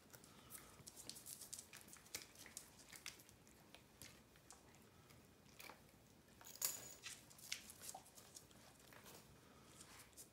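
Faint, irregular wet clicks and smacks from two puppies nuzzling and mouthing at a tabby cat's belly, with one sharper click about six and a half seconds in.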